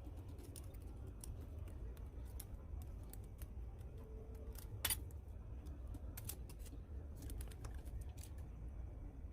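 Scattered light clicks and snips of small hand work at a bench, with one sharper click about five seconds in, over a low steady hum.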